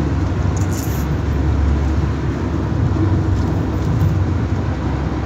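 Steady low road and engine rumble inside a moving car's cabin at cruising speed.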